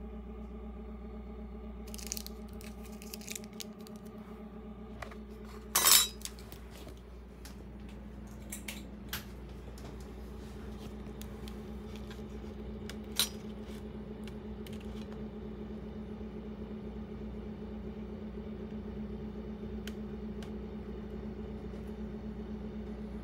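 Steady electrical hum with several fixed tones from a homemade laser galvo projection rig. Over it, small metal clicks and clinks as a stainless steel mirror is handled, the loudest a brief clatter about six seconds in, and one more sharp click about thirteen seconds in.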